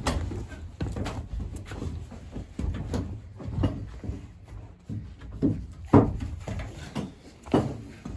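Footsteps and knocks on the old cabin's bare wooden floorboards: an irregular run of dull thumps, roughly one every second, the loudest about six seconds in, with the hollow ring of a small wooden room.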